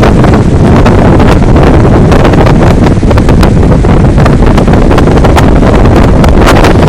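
Strong gale-force wind buffeting the camera's microphone: a loud, continuous rumble broken by many quick, sharp buffets.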